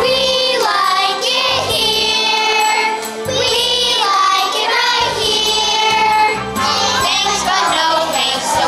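A chorus of children singing a song with musical accompaniment, in held, gliding notes.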